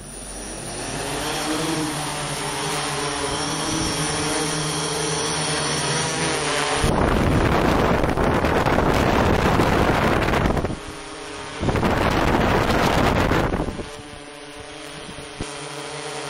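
Flat8 eight-rotor multicopter's motors and propellers whirring, rising slightly in pitch at first. About seven seconds in, a loud rushing noise takes over for about four seconds, and again for about two seconds. The steadier, quieter whir returns near the end.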